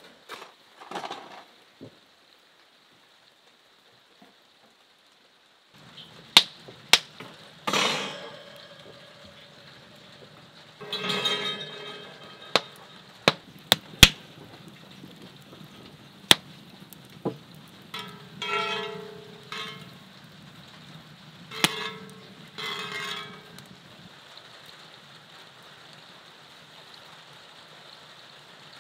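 Wood fire crackling in a brick firebox, with irregular sharp pops over a steady low background and a few short stretches of hiss. The crackling starts about six seconds in.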